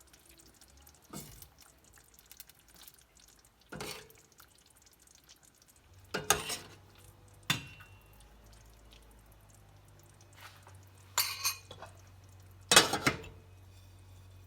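Dishes, pots and utensils clattering and clinking in a kitchen: about six separate knocks, the loudest near the end, with a faint steady low hum setting in about halfway.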